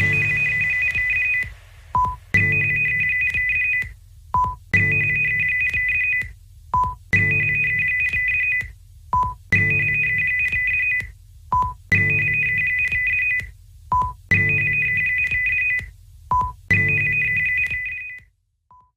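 Emergency broadcast alert tone: a held high two-note electronic beep of about a second and a half, followed each time by a short lower blip, repeating evenly about every two and a half seconds, eight times over.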